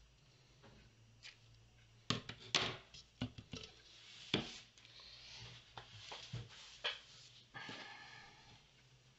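Hands handling craft supplies on a tabletop: several sharp clicks and knocks as things are picked up and set down, then rustling of a wrapping as a blue ribbon is pulled out.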